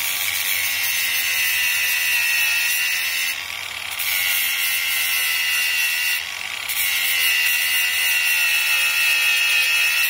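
Angle grinder with an abrasive disc running against steel, grinding the leftover spot-weld metal flat on a lower control arm cam tab. A steady high whine that dips briefly twice, about three and a half and six seconds in.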